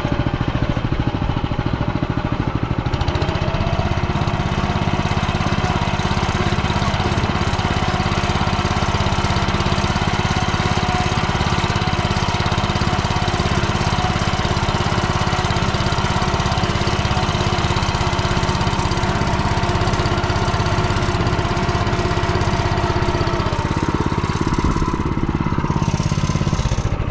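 Single-cylinder petrol engine of an MTZ-09N walk-behind tractor running steadily while the tractor drives under its own power. The engine note shifts a few seconds before the end.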